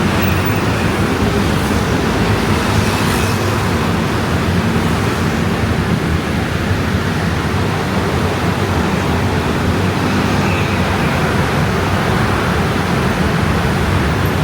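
Heavy stream of motor scooters in dense traffic: a steady drone of many small engines and tyres, with no single vehicle standing out.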